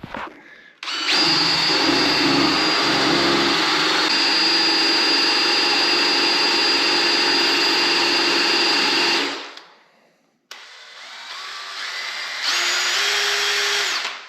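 Power drill spinning a multi-armed paint-mixer attachment, running steadily for about eight seconds. After a brief stop it starts again, speeding up in steps, and runs about three seconds more.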